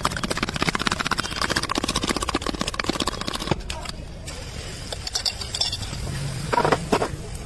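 Spoon beating batter in a steel cup: rapid, even clinking strokes that stop about three and a half seconds in.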